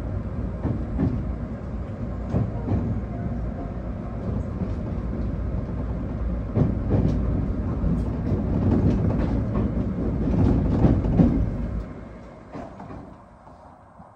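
Electric train running on the rails, heard from inside the front of the car: a steady rumble with repeated clacks as the wheels pass rail joints and points. The running noise falls away about twelve seconds in.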